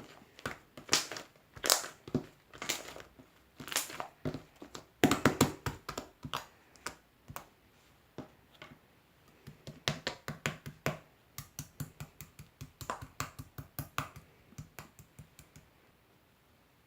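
Slime being handled by hand, giving off a series of sharp crackling pops and clicks. Later the clicks come quicker, lighter and more regular, then fade out.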